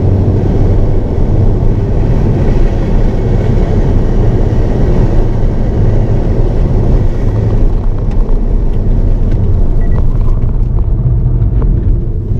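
Inside the cabin of a Hyundai Avante N: a steady low rumble of engine and road noise while the car drives, the hiss above it easing off a little after the middle, with a few light clicks near the end.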